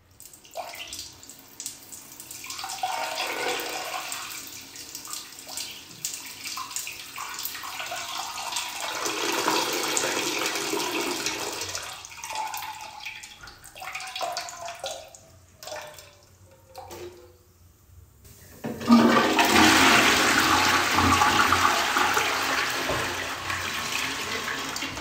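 A person urinating into a toilet bowl: the stream splashes into the water, changing in strength, then thins to a few last spurts. About 19 seconds in, the toilet is flushed, a sudden loud rush of water that slowly dies down.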